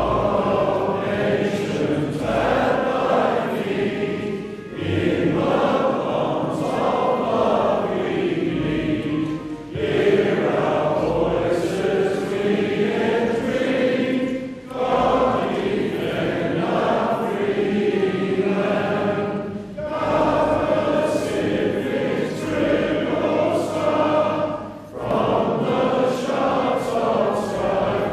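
Choir singing in slow phrases about five seconds long, with a short break between each.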